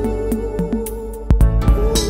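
Background music with a steady beat, a held melody line and a heavy bass hit about a second and a half in.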